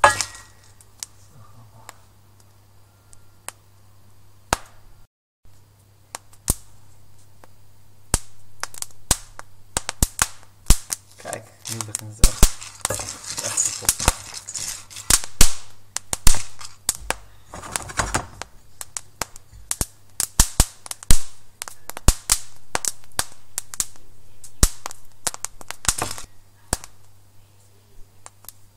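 Brazilian Yellow Bourbon coffee beans popping in a pan as they roast, at the first crack. The sharp cracks are sparse at first and come thick and irregular from about eight seconds in, with the beans stirred through the pan now and then. A low steady hum runs underneath.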